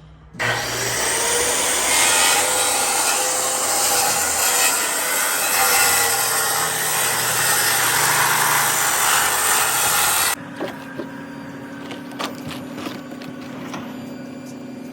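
Power saw cutting through lumber in one long, continuous cut that starts and stops abruptly. It is followed by a quieter steady hum with scattered sharp knocks.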